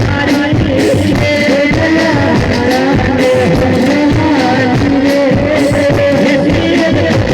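A singer holding long, bending notes in a devotional folk bhajan, over instrumental accompaniment with a steady percussive beat.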